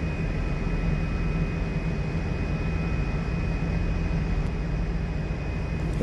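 Steady low machinery drone on a ferry's car deck, with a faint high steady whine over it.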